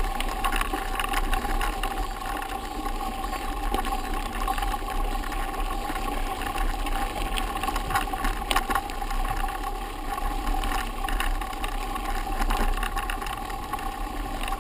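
Mountain bikes riding over a dirt-and-gravel forest road: a steady rolling rumble and rattle of tyres and frame, picked up by a camera riding on a bike, with a few sharp knocks from bumps about eight seconds in.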